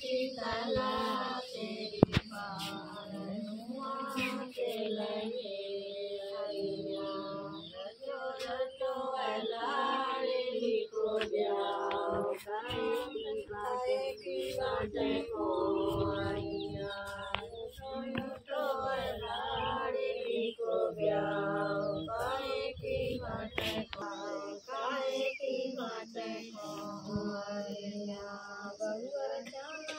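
Several women's voices singing a folk song together, with one sharp click about two seconds in.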